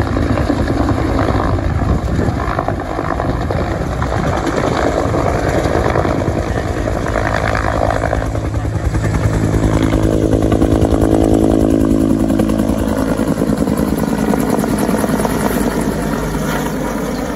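Two-bladed water-bombing helicopter flying in low and passing overhead, its rotor beating loudly. An engine whine swells in about nine seconds in and fades a few seconds later.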